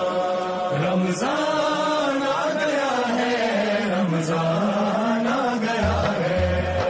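A single voice singing a slow, ornamented chant-like melody with long gliding notes, as background music; a low drum beat comes in near the end.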